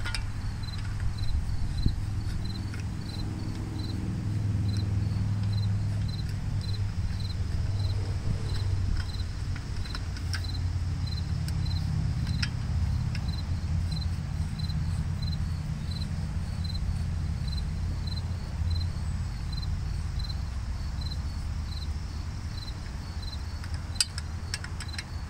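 An insect chirping steadily, about two short high chirps a second, over a steady low rumble. A few sharp metal clicks from a socket ratchet snugging up bolts.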